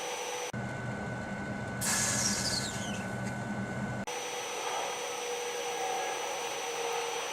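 Microwave oven running with a steady hum and whir. The sound changes abruptly about half a second in and again about four seconds in, and a brief falling hiss comes around two seconds in.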